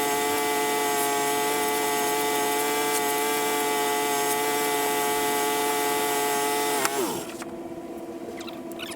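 Portable bandsaw sawmill running steadily at full speed. About seven seconds in its pitch drops quickly as it winds down, leaving a quieter steady hum.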